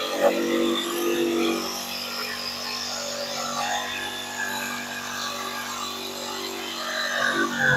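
Makita jigsaw running steadily, its blade sawing through a pine board, with a steady motor hum under the cutting noise.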